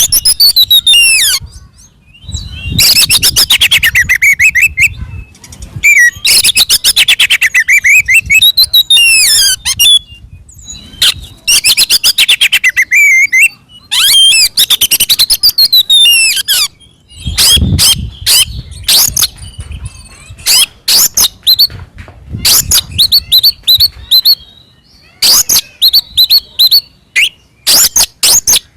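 Oriental magpie-robin (kacer) singing loud, aggressive fighting song. It comes in bouts of fast, high trills and rattling phrases, then a run of separate sharp notes and short whistles.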